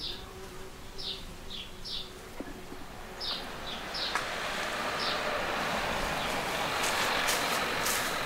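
Small birds chirping in short, repeated descending calls, then from about four seconds in a rushing vehicle noise swells up and grows louder.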